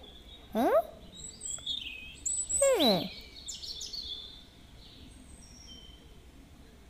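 Cartoon whistle sound effects: a short rising whistle glide under a second in and a falling whistle glide about three seconds in, over faint bird chirps.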